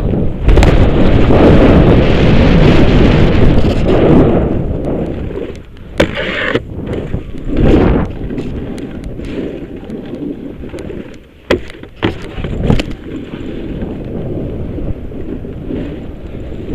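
Snowboard sliding fast over packed snow, with wind rushing over the camera's microphone and the board's edges scraping the surface. Loudest over the first four seconds, then quieter, with a few sharp knocks scattered through.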